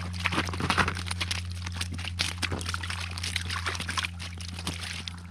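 Water sloshing and splashing in an ice-fishing hole as a hooked splake thrashes at the surface, with scattered short clicks and a steady low hum underneath.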